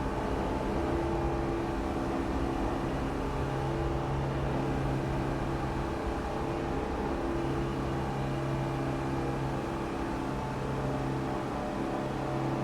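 Subway station ambience: a steady low rumble under a machine-like hum of several held tones, which drop away briefly about six seconds in and return.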